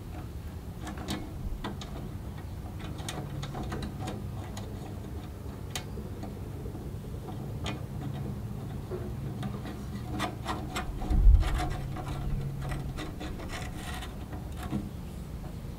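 Scattered small metallic clicks and rubbing as screws and nuts are worked by hand inside a stainless steel grill body, with one louder dull knock about eleven seconds in.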